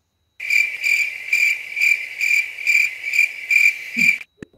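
Electronic ringing tone of a browser video-call page, a high pitched beep pulsing about two and a half times a second, that cuts off suddenly near the end. It signals the waiting call being answered.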